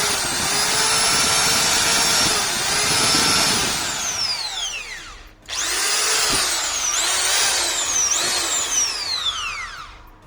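Electric drill's motor running under the variable-speed trigger, its whine rising and falling with speed. It runs down and stops about five seconds in, spins up again at once, and winds down near the end. The drill runs again after its worn carbon brushes were dealt with.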